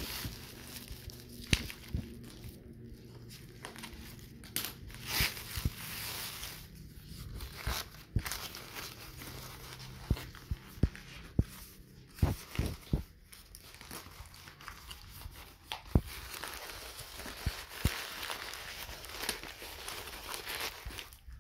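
Plastic courier bag and wrapping crinkling and being torn open by hand, with many short, sharp crackles throughout.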